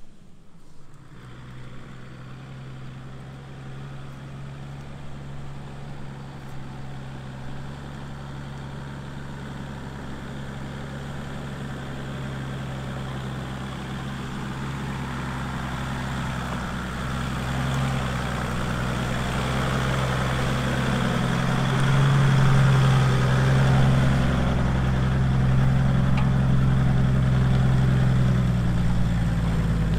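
Toyota Land Cruiser's 4.2-litre six-cylinder turbo-diesel running steadily at low revs as it crawls over rough forest ground, growing steadily louder as it draws near and is loudest about three quarters of the way through.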